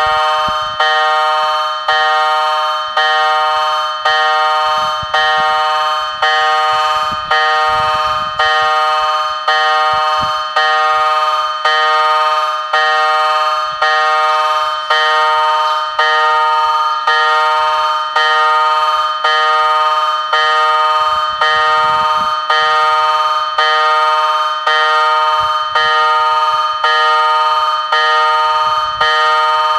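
Level-crossing warning bell ringing in a steady series of strikes, about one a second, each ring fading before the next: the crossing is active, warning that a train is coming.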